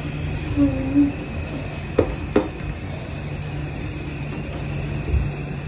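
Gobhi aloo matar cooking in a hot non-stick wok with a faint steady hiss over a steady low hum, and two short knocks of a utensil against the pan about two seconds in.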